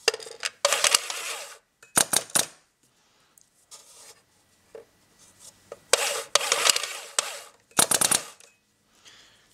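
Original Halo paintball loader with a SmartGuide running in bursts, its drive spinning and reusable rubber reballs rattling and clicking in the feed, with about six separate bursts and quiet gaps between them. The feed stalls on a worn reball, and the SmartGuide clears the jam by itself.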